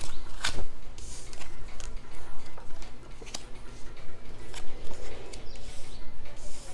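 Tarot cards being drawn off the deck, flipped and laid down on a cloth-covered table: a string of irregular sharp clicks and soft slaps.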